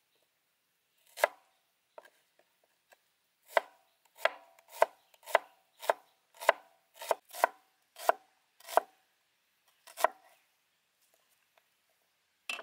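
A wide-bladed kitchen knife slicing an onion on a wooden cutting board: about a dozen crisp chops of the blade onto the board. After a single cut, they come about two a second through the middle stretch.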